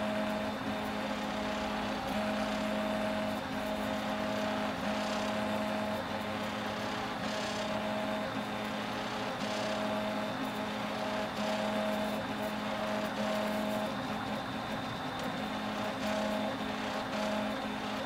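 3D printer's stepper motors, driven by A4988 stepper drivers, moving the print head. They give steady musical tones that break off and resume every second or so as each move starts and stops, over a constant hiss.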